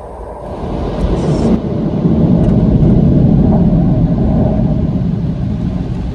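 Cloth mitter curtains of a tunnel car wash sweeping back and forth over the car's roof and glass, with water spray, heard muffled from inside the car. The sound grows louder over the first two seconds and eases slightly near the end.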